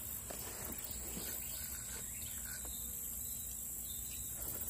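Steady high-pitched chorus of insects in the grass around the pond.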